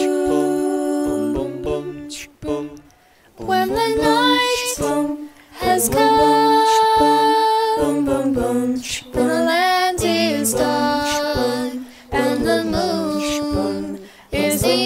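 Girls' vocal ensemble singing a cappella in harmony over a low, steadily pulsing bass part, with a brief lull about two seconds in.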